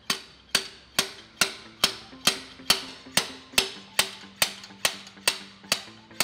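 Homemade slide hammer hooked into the old pilot bearing in an LS engine's crankshaft, its weight slammed against the stop over and over: a steady run of sharp knocks, about two a second, as the bearing is pulled out.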